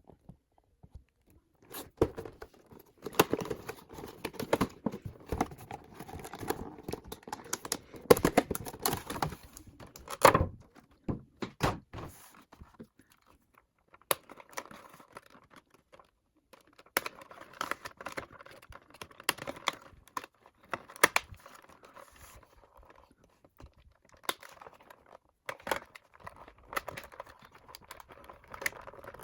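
Hands opening a cardboard and plastic doll box: irregular taps, knocks and scrapes on the packaging, with stretches of crinkling plastic.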